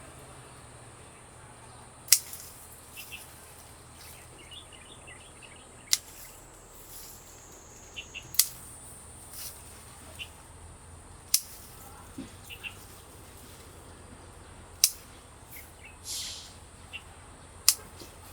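Pruning shears snipping hydrangea stems: about six sharp, separate snips a few seconds apart, with faint bird chirps between them.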